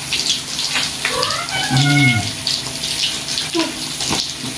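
Fish frying in hot oil in a wok, a steady sizzle with many small crackles and pops. A person's voice is heard briefly about a second and a half in.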